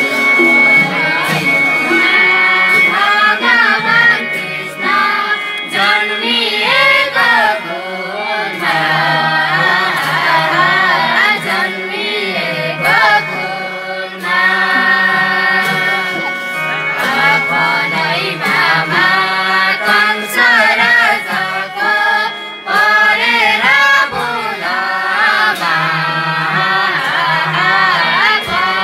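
Group of young women singing a Nepali folk song together into a microphone. The melody moves in short rising and falling phrases over a steady held note.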